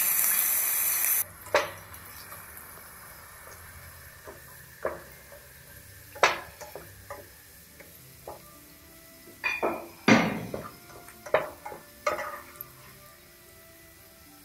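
Ginger frying in hot oil with a loud sizzle that cuts off suddenly about a second in. It is followed by a dozen or so irregular clinks and knocks of a utensil against the pan, the loudest about ten seconds in, over faint background music.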